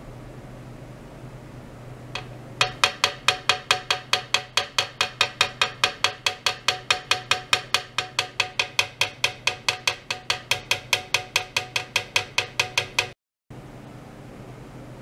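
Machine-even ticking at about five ticks a second, each tick with a brief ringing tone, from an ultrasonic test rig whose probes in a water tank are driven by a function generator. The ticking follows a single click about two seconds in and cuts off abruptly near the end, over a steady low hum.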